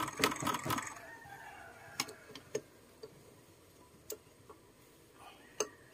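Hand wrench tightening a bolt on a Yamaha Mio Sporty scooter engine: a quick run of metal clicks in the first second, then single sharp clicks every second or so as the bolt is snugged down slowly to avoid stripping the thread.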